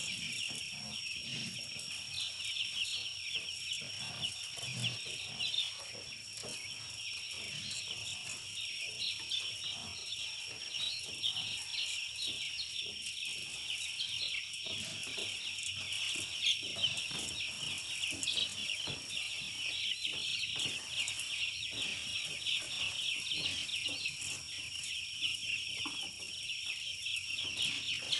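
A large flock of young broiler chicks peeping continuously, many short high cheeps overlapping, with a steady high-pitched tone underneath.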